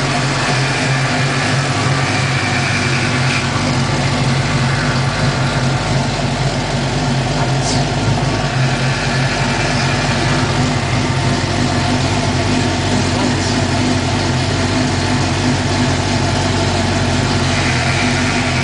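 1993 Mustang's rebuilt Ford 5.0 (302) V8 running at a steady idle. The rocker-arm noise is gone: a loose rocker has been fixed and the rockers readjusted.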